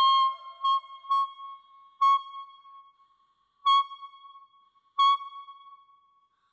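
Clarinet mouthpiece and barrel played on their own, giving a single high, reedy tone: a held note that bends down into pitch and breaks off shortly after the start, then five short blasts on the same pitch, irregularly spaced, each fading away.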